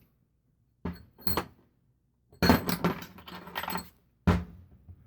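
Metal fork parts and tools clinking and rattling as they are handled, in short bursts: two brief clinks, a longer clattering stretch, then a sharp knock near the end.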